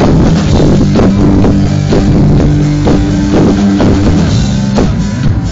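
A live rock band playing loud through the PA: electric guitar and bass guitar holding notes over a steady drum-kit beat, with the chord changing near the end.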